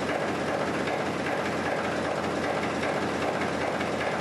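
Large six-cylinder diesel engine running steadily, a loud dense mechanical clatter.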